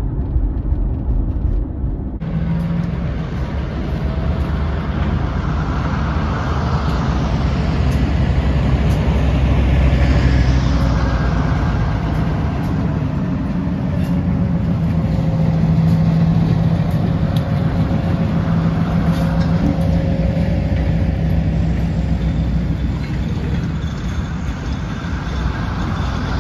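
Diesel end-cab switcher locomotive running as it slowly leads a string of freight cars past, its engine a steady low hum, with clicks and clanks from the wheels and cars and a thin drawn-out squeal through much of the pass. The first couple of seconds are road noise heard from inside a car.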